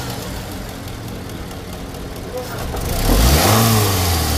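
Toyota Camry's four-cylinder engine idling, then revved once about three seconds in, the pitch rising and settling back. The cylinder-three misfire is cured, by the mechanic's account, after a damaged resistor in the ECM's ignition-coil circuit was replaced.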